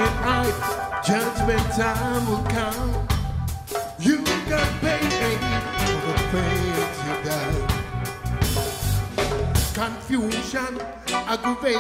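Background music: an upbeat song with drums and bass keeping a steady beat.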